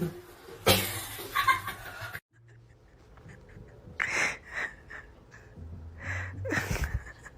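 A person laughing under their breath in short breathy bursts, broken by a sudden gap about two seconds in.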